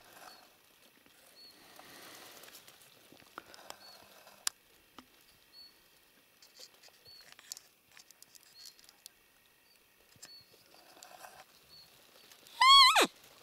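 Roe deer call lure blown once near the end: a single loud, squeaky peep that rises and then drops away sharply, imitating a roe doe's call to draw a rutting roe buck. Before it there are only faint rustles and small high chirps.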